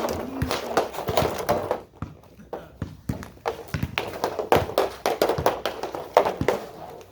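Hockey stick and puck tapping and clacking on synthetic ice, in irregular runs of sharp knocks with a short lull about two seconds in.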